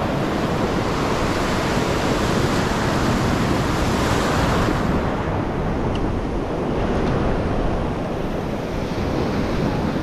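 Ocean surf washing onto a rocky shore, a steady rushing hiss whose brighter wash eases off about halfway through, with wind buffeting the microphone.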